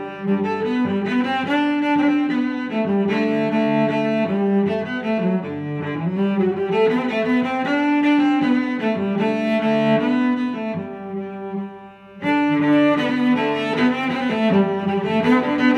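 Background music: a melody of sustained notes that drops away briefly about twelve seconds in, then resumes.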